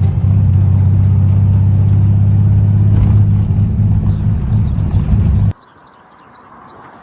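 Classic Fiat 500's air-cooled two-cylinder engine running steadily at highway speed, a loud low drone. About five and a half seconds in, the sound cuts off abruptly to quiet outdoor ambience with short high chirps.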